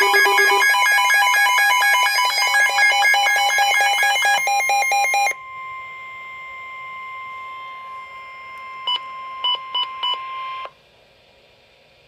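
Several NOAA weather alert radios, among them Midland units, sound their warning alarms together: fast, overlapping beeping in several pitches. About five seconds in the beeping stops and a quieter steady alert tone, the weather radio warning tone, holds for about five more seconds with a few short beeps near its end, then cuts off.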